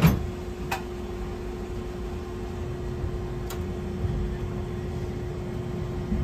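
Hankai Tramway Type 701 streetcar running, heard from inside the car: a steady low rumble of wheels on rail under a constant electrical hum, with a couple of short clicks.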